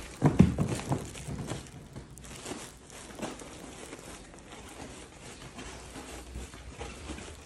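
Plastic trash bag rustling and crinkling as it is carried, with soft footsteps; loudest in the first second.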